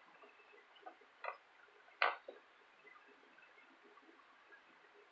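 A few light clicks and taps from a tape measure and a plastic spring terminal being handled on a concrete workbench, the sharpest about two seconds in.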